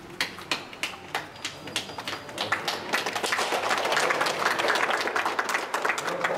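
Small crowd clapping by hand, scattered claps at first that thicken into steady applause about three seconds in.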